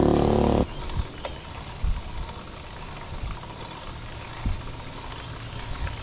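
A motor vehicle's engine running loud and steady, cut off abruptly under a second in. Then quieter wind rumble and road noise from a moving bicycle, with a few short thumps and knocks.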